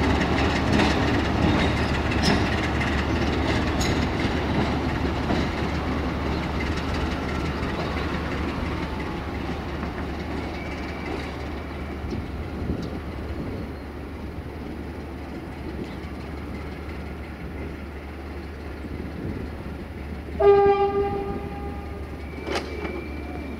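Locomotive-hauled train rolling along the track, with wheels on the rails, growing fainter as it moves away. A short train horn blast sounds near the end.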